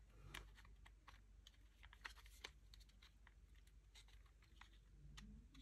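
Faint, irregular light clicks and taps of plastic model-kit parts being handled and test-fitted together, over a low steady hum.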